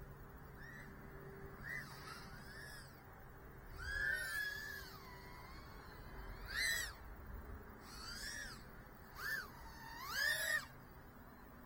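Small brushless motors of a 2-inch micro FPV quadcopter whining, the pitch sweeping up and falling back in a series of short throttle punches, the longest about four seconds in.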